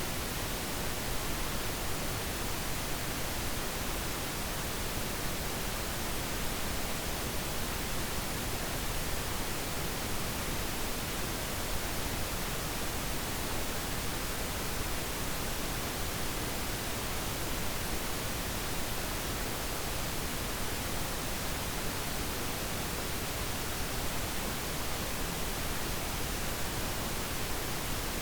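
Pink noise: a steady, even hiss spread across all pitches, with no change in level or character.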